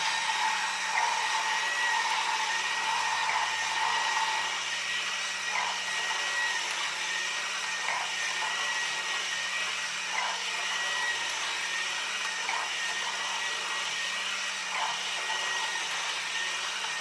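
Small electric motor of a Haynes build-your-own internal combustion engine model whirring steadily as it turns the clear plastic crankshaft, pistons and valve gear, with a thin high whine and faint clicks about every two seconds.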